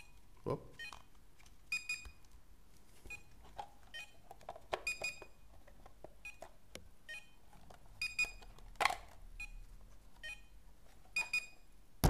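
Plastic parts of a robot vacuum's dustbin and filter being handled and fitted: a dozen or so short, irregular clicks, many with a thin high ring, and a couple of duller knocks about half a second and nine seconds in.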